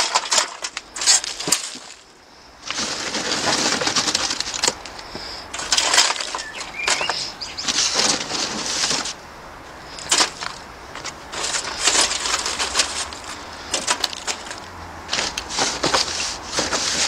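Dry sticks and twigs rustling and clattering as they are pushed into a perforated metal charcoal chimney starter, with many sharp clicks and cracks and a short lull about two seconds in.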